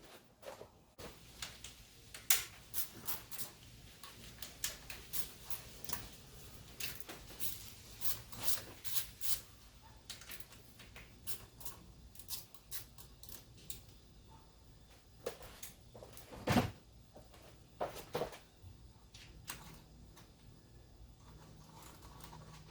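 Irregular metallic clicks and clacks of hand tools working on a car's carburetor as it is unbolted, with one louder knock about two-thirds of the way through.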